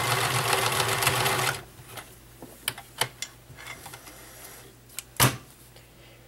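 All-metal mechanical Nelco convertible free-arm sewing machine running steadily through a straight stitch, then stopping about a second and a half in. A few light clicks follow, and near the end a sharp snip as the thread is cut with scissors.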